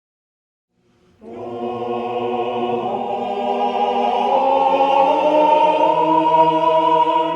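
Choral music: several voices holding long, slowly shifting chords, starting about a second in and swelling slightly.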